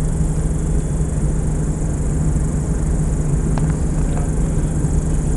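Diamond DA42 Twin Star's two engines running steadily: a constant low hum over a wash of hiss.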